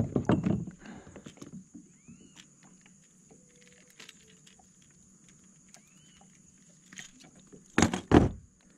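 Handling noise on a plastic kayak as a small peacock bass is held in a fish grip and pliers work a lure's hook free: a burst of clattering at the start, then faint small clicks, and two loud knocks close together near the end.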